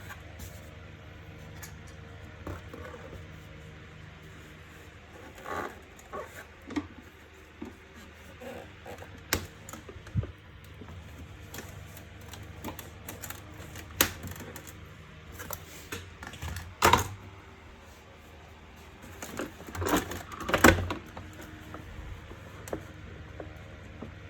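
Plastic parts of a Bosch wet-and-dry vacuum cleaner being handled and fitted together by hand: scattered clicks, taps and knocks, the loudest about 17 and 21 seconds in.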